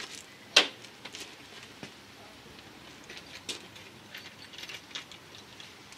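Scattered light metallic clinks and knocks of car parts and hand tools being handled. The sharpest clink comes about half a second in, followed by fainter ones at irregular intervals.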